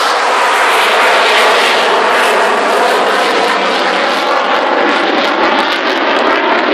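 Avro Vulcan's four Rolls-Royce Olympus turbojets running, a loud, steady jet noise.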